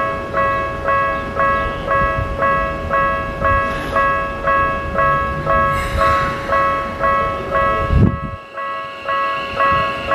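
Japanese level-crossing electronic warning bell ringing in a steady two-tone beat about twice a second, over the low rumble of a passing train. A heavy thump about eight seconds in, after which the rumble stops and the bell rings on.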